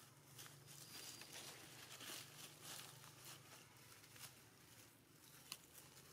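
Faint crackling and rustling of dry leaf litter as monkeys walk and shuffle over it, in many short, uneven crackles.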